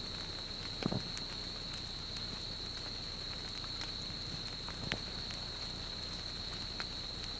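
Vegetation burning at the edge of an active lava flow, crackling with scattered sharp snaps and a couple of louder pops, about a second in and near five seconds, over a steady hiss and a steady high-pitched drone.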